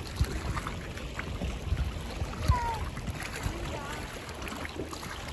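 Sea water splashing and lapping around a swimmer doing breaststroke, with wind gusting on the microphone.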